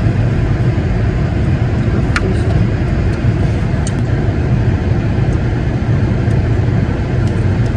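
Steady low rumble of a car driving, road and engine noise with no other distinct events.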